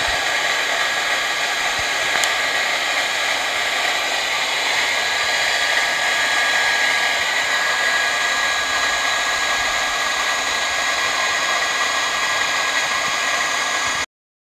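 Electric air blower of the hair-dryer type running steadily to force air into a homemade charcoal furnace: an even rushing of air with a steady high whine.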